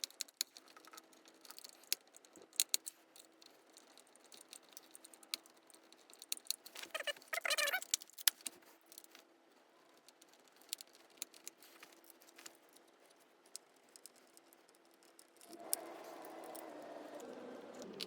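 Small scattered clicks and light rattling of a screwdriver and small screws against the plastic housing of a Dyson V10 vacuum being screwed back together. There is a brief denser rattle about seven seconds in, and a steady faint noise comes in near the end.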